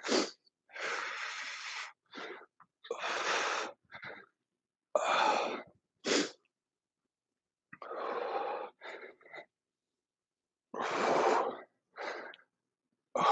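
A man breathing hard in short forceful breaths while doing resistance-band back rows, a breath every second or two with brief silent pauses between.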